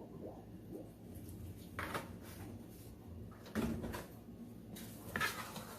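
Faint kitchen handling sounds: a few short scrapes and knocks about two, three and a half, and five seconds in.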